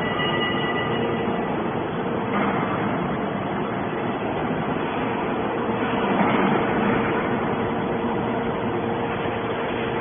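Y81-250 hydraulic scrap metal baler running, its hydraulic power unit giving a steady mechanical hum with one constant tone over a rushing noise. The noise swells slightly about six seconds in.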